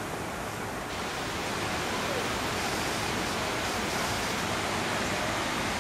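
Steady rushing noise with no distinct events, turning brighter and hissier about a second in.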